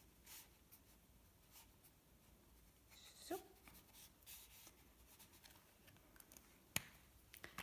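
Faint strokes of a brush pen's felt tip on paper while colouring, with one sharp click near the end.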